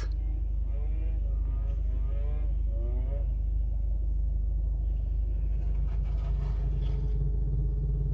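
Motorcycle engine running in the parking lot, heard through a car's closed windows over a steady low rumble. It rises and falls in pitch a few times early on, then settles into a steadier drone in the second half.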